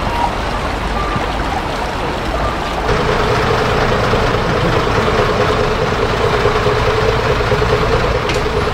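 Water bubbling and splashing in a fountain. About three seconds in it gives way to a route bus's diesel engine running with a steady drone as the bus pulls slowly past.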